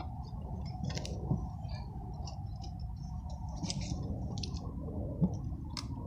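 Steady low background rumble with scattered short, high clicks and ticks, and a single soft thump about five seconds in.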